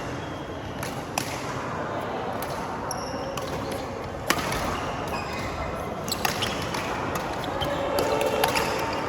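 Badminton rackets striking a shuttlecock during a rally: sharp, spaced hits, the loudest about four seconds in. Short squeaks, as of shoes on the court floor, come between the hits.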